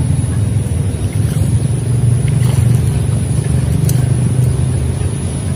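A steady low engine drone running without change, with a few faint clicks.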